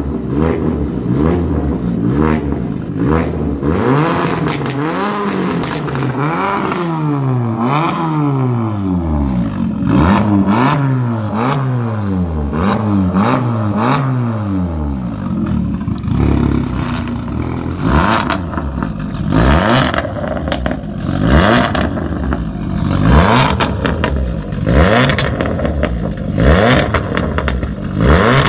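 Fiat 500 Abarth's 1.4 turbocharged four-cylinder revved repeatedly at standstill through a titanium aftermarket exhaust, the pitch rising and falling with each rev. Later come short, sharp blips of the throttle, about one a second.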